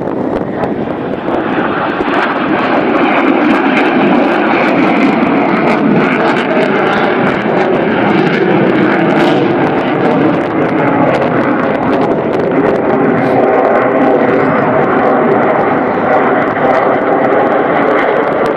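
Fixed-wing aircraft engine noise, swelling about two seconds in and then holding steady.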